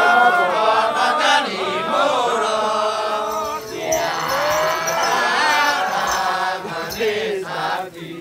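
Kecak chorus of men chanting in unison, with long held sung notes that bend in pitch.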